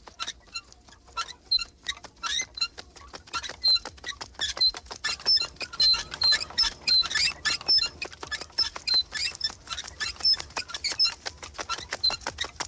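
Many short, high squeaks from swings, crowding over one another and growing busier after about four seconds, so that they sound like mice squeaking.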